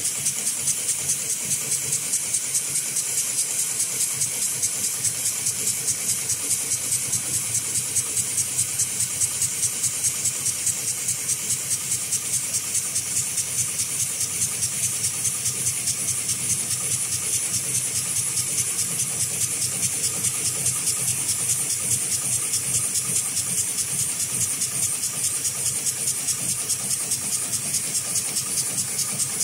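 HighTex 71008R heavy-duty automatic bar-tacking sewing machine running, stitching a zigzag bar tack through climbing rope with an even, rapid run of needle strokes. A steady high hiss runs under the stitching.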